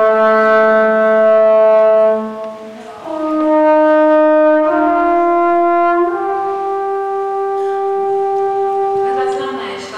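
Musical instrument holding four steady notes in turn, each rich in overtones. A low note lasts about two seconds, then after a short break three higher notes follow, each a step above the last.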